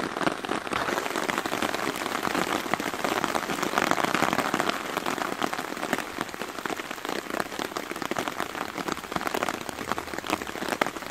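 Heavy downpour of rain beating on the tarp overhead, a dense, steady patter of drops.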